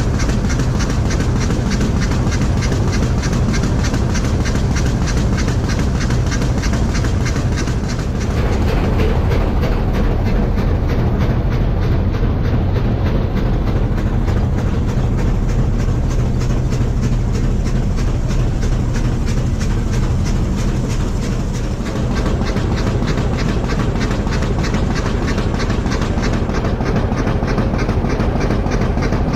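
Steam locomotive of a rack railway working uphill, a steady, evenly repeating mechanical rhythm with a constant low rumble underneath.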